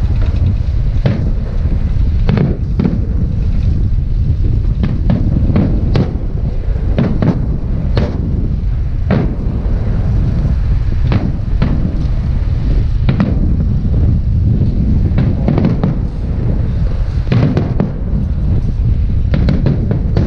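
Fireworks salute: aerial shells bursting one after another in a continuous low rumble of booms, with many sharp cracks and pops scattered irregularly throughout.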